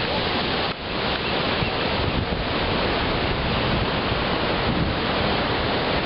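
Ocean surf washing over rocks and sand in a steady, even rush, mixed with wind blowing on the microphone. The level dips briefly under a second in.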